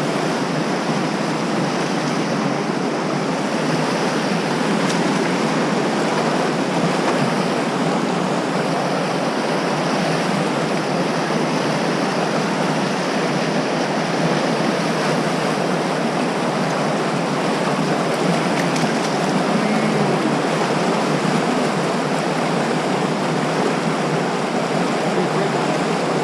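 Steady rush of a whitewater river running over rocks, loud and unbroken.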